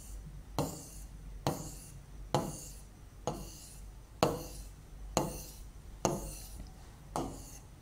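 Pen drawing straight lines across an interactive touchscreen board: about eight strokes, one roughly every second, each starting with a sharp tap and fading in a brief rub.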